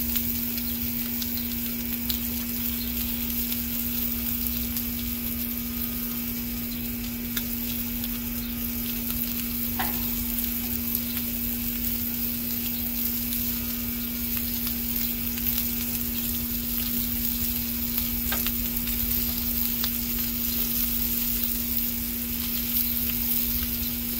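Sausage patties sizzling on a Blackstone flat-top griddle: a steady frying hiss with a couple of faint pops, over a steady low hum.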